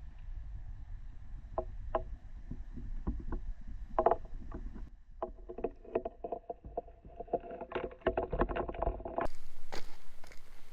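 Water splashing and sloshing with irregular knocks and clicks over a low rumble. The sound changes abruptly near the end.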